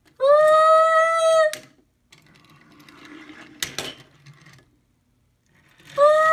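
Two long, steady horn-like honks, each about a second and a half, one near the start and one near the end, with a single knock of a die-cast toy car on the wooden table in between.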